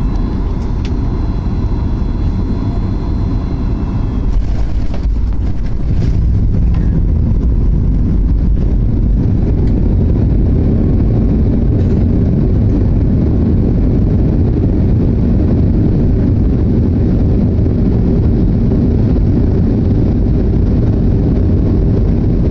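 Steady low rumble of a Boeing 737 MAX 8's engines and airflow, heard inside the cabin, growing louder about five seconds in and then holding steady.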